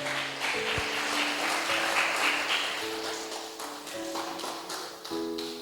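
A congregation clapping over held chords of background church music, the clapping fading toward the end.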